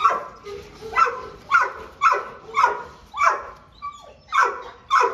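A dog barking over and over, about eight short barks roughly half a second apart, each dropping in pitch, with a brief pause near the end.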